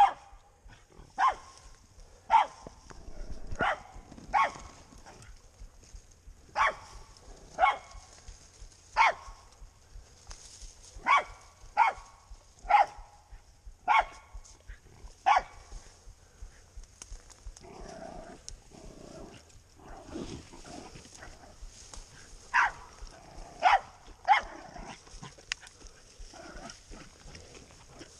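Pig-hunting dog barking at a boar it is holding at bay: sharp single barks about once a second, broken by a few short pauses.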